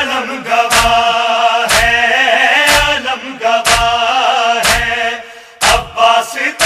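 Male voice chanting a nauha, an Urdu Shia lament, over a sharp beat that falls about once a second. The voice drops away briefly a little after five seconds in, then comes back.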